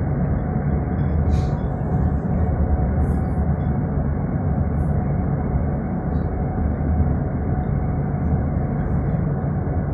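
Steady running rumble of a tram, heard from inside the car as it rolls along at an even speed.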